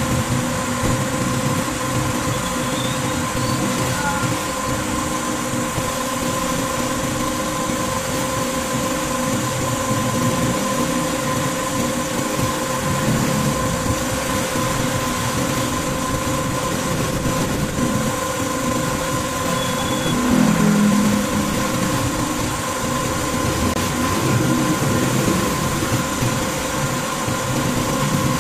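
A motor or engine running steadily at a constant speed, a continuous hum with a steady drone over a low rumble, swelling slightly about two-thirds of the way through.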